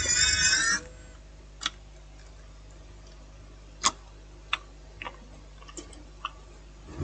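A held musical chord ends just under a second in. It is followed by about seven faint, sharp clicks and taps at irregular intervals, like small tools or parts being handled on a workbench.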